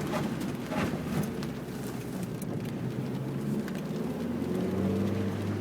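Mazda Miata's four-cylinder engine running, its revs rising about three and a half seconds in, over a steady hiss of rain and wet road.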